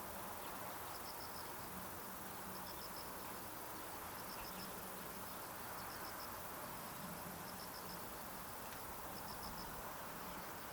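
An insect chirping: short high-pitched trills of three or four quick pulses, repeating about every second and a half over steady background noise.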